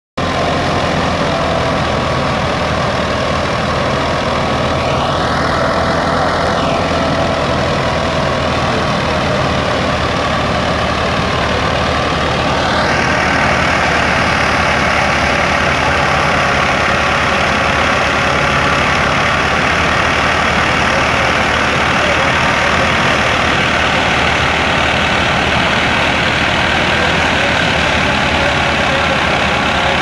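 Tractor-driven wheat thresher running steadily: the tractor's diesel engine working under load as it turns the thresher by belt and pulley, mixed with the whir of the thresher drum. A brief whine rises and falls about five seconds in, and the noise grows a little louder from about thirteen seconds in.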